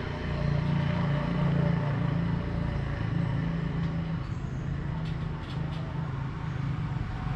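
Steady low engine-like rumble, like a motor vehicle running, with a few faint clicks about two-thirds of the way through.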